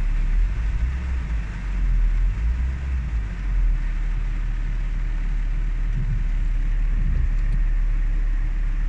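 Renault Twingo's four-cylinder petrol engine idling steadily at about 1000 rpm, heard from inside the cabin, with rain pattering on the car.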